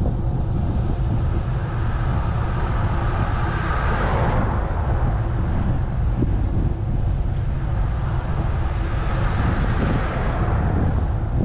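Wind rumbling over a bicycle-mounted camera's microphone while riding, with the tyre hiss of passing cars swelling and fading twice, about four seconds in and again near the end.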